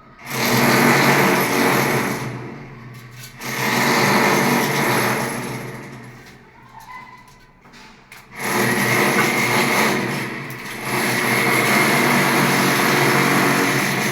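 A small electric power tool run in three bursts. Each burst starts sharply with a steady motor whine and tails off, the last one running longest.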